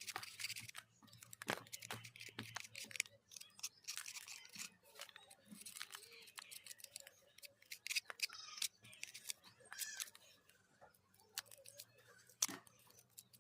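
Small tools and phone parts being handled: rapid, irregular clicks, taps and short scrapes over a faint low hum.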